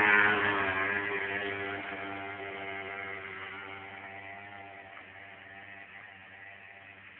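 Small motor scooter engine running as the scooter rides away. Its sound fades steadily into the distance.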